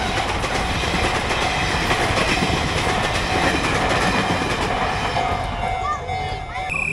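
Train passing through a railway level crossing: loud, steady noise of the train running over the rails.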